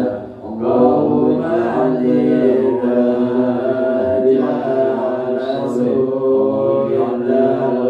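Male voices chanting an Islamic prayer: a steady, melodic chant with held notes and only a brief pause about half a second in.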